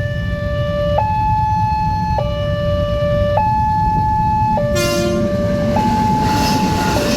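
Railway level-crossing warning siren alternating between a low and a high tone, each held for a little over a second, over a steady low rumble. A brief extra tone cuts in about five seconds in.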